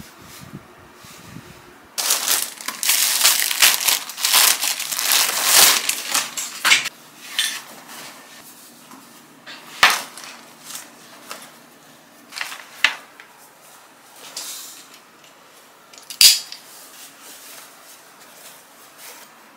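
Loud rustling and crinkling of packaging and cloth as a new denim apron is pulled out of its box, for about five seconds starting two seconds in. Then a few scattered handling knocks and clicks, the sharpest near the end.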